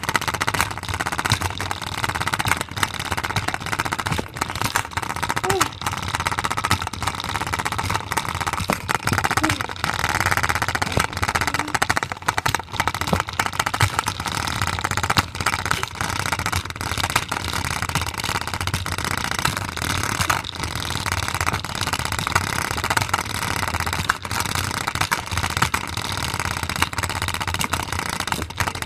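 A spinner carrying a Play-doh container, making a loud, rapid, continuous banging and rattling as it spins: the container shakes because the Play-doh inside is unbalanced.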